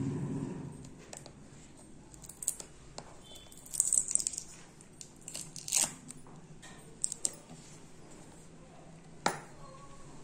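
Hands handling a cardboard smartphone retail box: a handful of scattered short taps, scrapes and rustles, loudest about four and six seconds in, as fingers grip the box and pick at its seal sticker.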